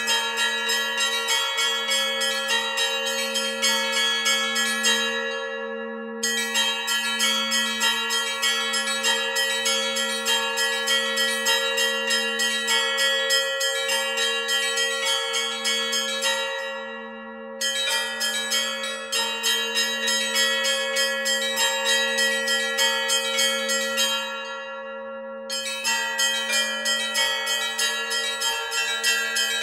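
Russian church bells rung in the Novodevichy tradition. The small treble (zazvon) bells are struck in a quick, even run over the long, steady hum of larger bells. The quick strikes stop briefly three times and then start again.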